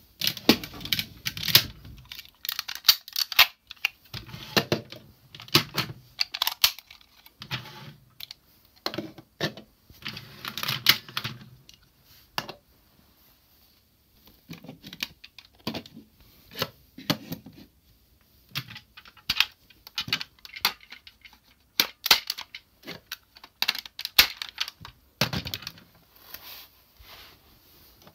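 Hard plastic toy parts clicking and clattering as DX Zyuohger cube robot pieces are handled, turned and snapped onto a larger robot toy, in irregular bursts with short pauses.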